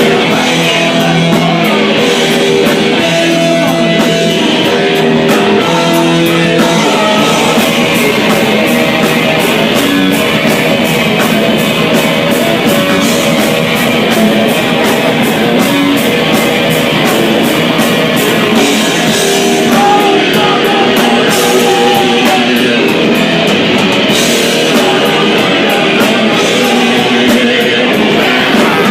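Loud, distorted rock music with electric guitar and drums, with some singing.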